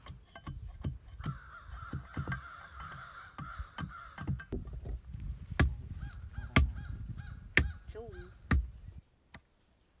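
Machete chopping and shaving a green forked stick against a wooden stump: a run of knocks, with heavier strikes about once a second in the second half, stopping abruptly near the end. Birds call in the background.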